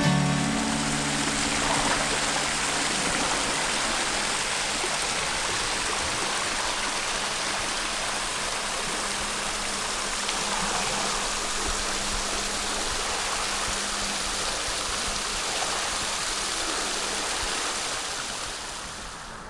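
Small waterfall spilling over sandstone ledges into a shallow pool: a steady rush and splash of falling water that fades down near the end.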